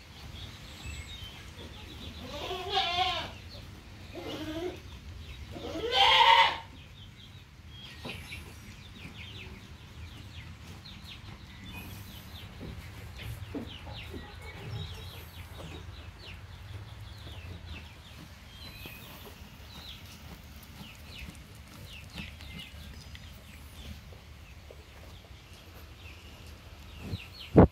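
Goats bleating: three calls in the first seven seconds, each bending up and down in pitch. After that, only faint high chirping at a much lower level, and one sharp knock at the very end.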